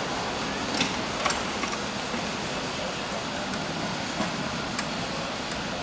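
Ride-on miniature railway train rolling along its track: a steady running noise of wheels on rail, with a few sharp clicks as the wheels cross rail joints.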